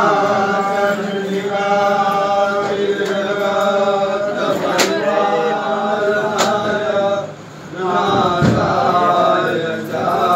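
Hindu devotional chanting in long, evenly held phrases with brief breaks between them. Two sharp clicks come near the middle.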